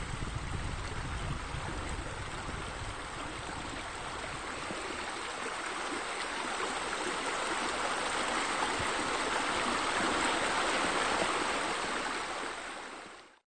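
Flowing water rushing steadily as a water-feature ambience. It swells about ten seconds in and fades out near the end.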